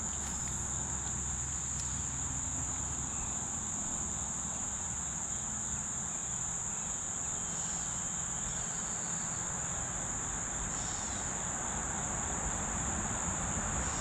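A chorus of insects in riverside trees, one continuous high-pitched drone that holds steady without pause.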